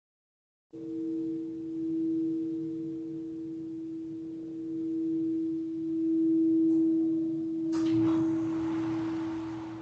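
Singing bowl ringing with a steady low tone that starts abruptly after dead silence, its loudness slowly swelling and ebbing. About eight seconds in, a fresh strike adds a higher ring over the tone.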